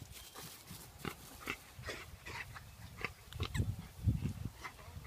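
A dog breathing hard in short, repeated huffs, about two a second, with a few low rumbles around the middle.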